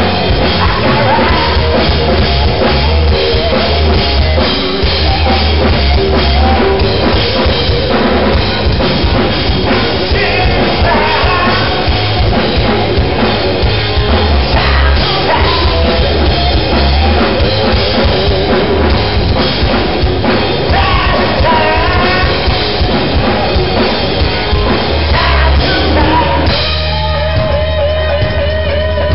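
Live rock band playing loud: drum kit, electric guitar and bass with a singer. About 26 seconds in the full band thins out, leaving a wavering guitar line.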